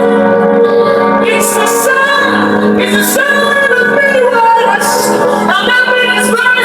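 Worship music: a woman singing held, wordless or unrecognised sung lines over a steady instrumental backing.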